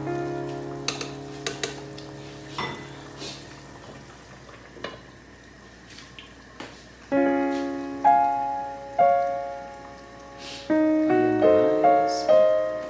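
Background piano music, individual notes ringing and fading, sparse at first and busier from about seven seconds in, with a few light clicks in the first five seconds.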